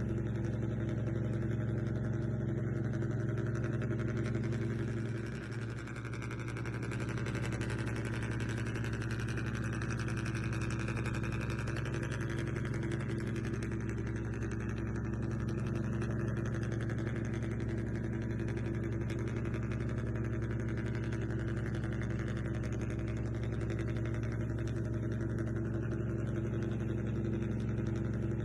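Steady low motor hum at a fixed pitch, dipping briefly about five seconds in.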